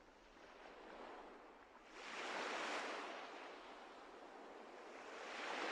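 Rushing water noise that swells twice, about two seconds in and again near the end, like ocean waves washing.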